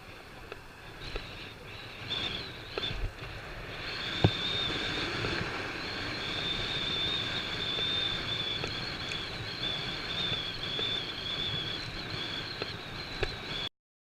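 Street and road noise with a steady, high-pitched, slightly wavering whine and a few sharp knocks; it cuts off suddenly near the end.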